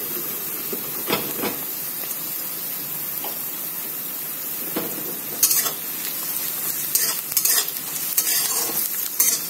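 Chopped onion and freshly added chopped garlic sizzling in hot oil in a pan. The pan is stirred with a utensil scraping against it now and then, more often in the second half.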